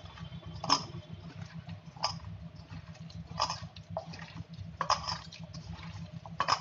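Wet gram-flour batter with sliced onion and potato squelching as a hand squeezes and mixes it in a steel bowl, a short squish about every second and a half.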